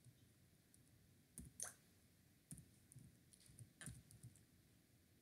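Faint computer keyboard keystrokes: several separate clicks spread out with short pauses, as a few letters are typed slowly.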